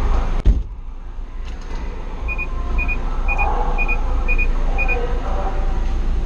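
A car door shuts with a thump about half a second in, after which the inspection hall's noise is muffled. Six short electronic double beeps follow, about two a second, over a steady low rumble from the hall.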